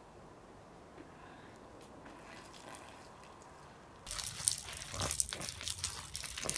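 Quiet for about four seconds, then a sudden loud, crackling, spattering noise like liquid splashing, which carries on to the end.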